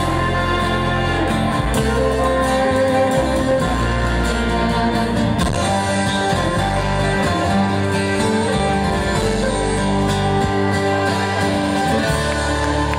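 A live band playing at a concert, led by acoustic guitar with a drum kit.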